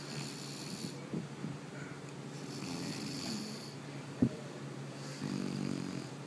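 A woman snoring in her sleep: three slow, airy breaths, the last with a low buzzing snore. There is a short sharp click about four seconds in.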